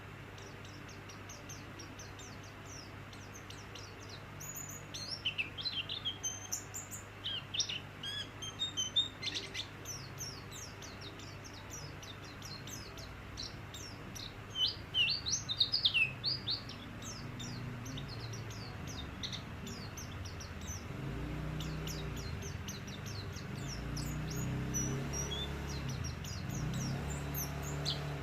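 A white-eye (pleci) singing actively: rapid high chirps with louder bursts of twittering about five and fifteen seconds in. A low hum grows beneath it in the second half.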